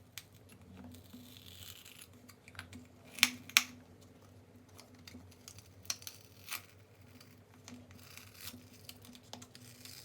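Small parts being handled by hand: light scraping and rustling, then scattered small sharp clicks, the loudest two in quick succession about three seconds in.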